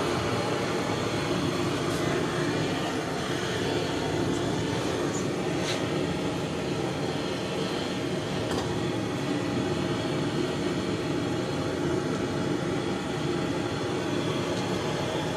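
Gas brazing torch flame burning on a refrigerator compressor's copper line, a steady rushing noise that holds even throughout.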